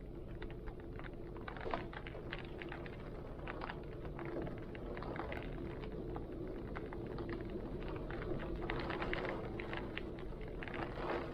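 Heavy rain falling in strong wind: a steady low rumble under a constant wash, with many sharp drop impacts scattered through it.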